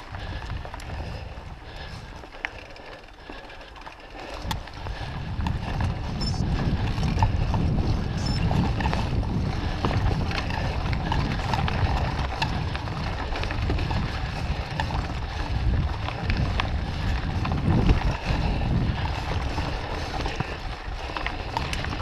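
Moots Mooto-X RSL mountain bike descending a dirt singletrack: wind buffeting the helmet or chest camera's microphone, tyres rolling over dirt and leaves, and the bike rattling and clicking over bumps. The rumble gets louder about four seconds in as the speed picks up.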